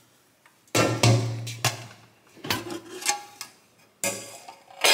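Background music with a slow, steady beat: sharp hits with short ringing tails about every 0.8 seconds.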